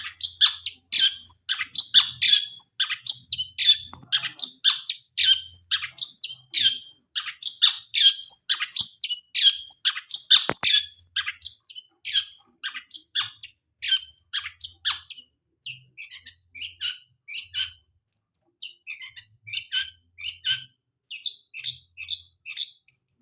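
Long-tailed shrike (cendet) singing a fast run of short, harsh, chattering notes, about three to four a second, thinning out in the second half.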